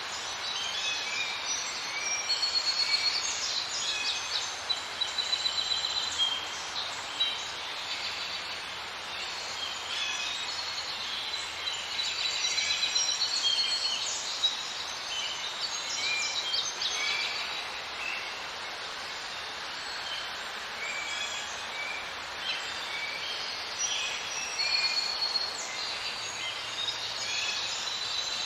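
Many small birds chirping and twittering over a steady outdoor background hiss.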